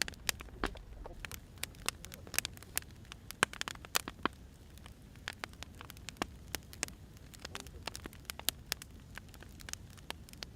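Firewood burning, crackling with many irregular sharp pops and snaps over a steady low rumble.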